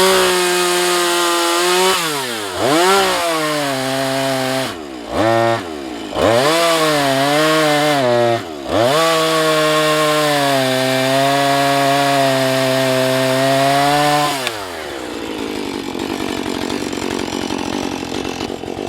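Husqvarna 435 two-stroke chainsaw at full throttle cutting into a sycamore log. Its pitch sags and recovers several times as the chain loads up in the wood, holds high and steady, then drops to a lower, quieter running sound about fourteen seconds in as the throttle is released.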